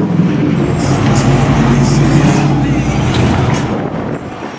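Car engines running low and steady as fourth-generation Chevrolet Camaros roll slowly past at walking pace, the sound easing off near the end.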